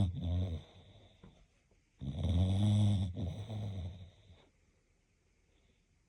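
English bulldog snoring in its sleep: a low buzzing snore that fades out about half a second in, then a second, longer snore about two seconds in that lasts some two and a half seconds.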